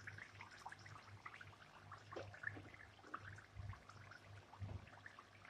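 Chicken in a tomato-and-yoghurt curry gravy simmering in an open pan: faint, irregular bubbling and popping, over a low steady hum.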